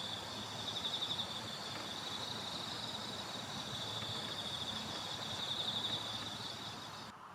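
Insects trilling steadily in a continuous, finely pulsed high chirring, cutting off abruptly near the end.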